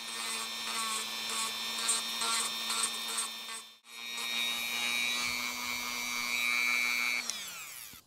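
Dremel rotary tool with a sanding drum running at a steady whine, grinding intermittently against the plastic edge of a shifter mount to smooth a fresh cut. It stops briefly about four seconds in, starts again, and spins down with falling pitch near the end.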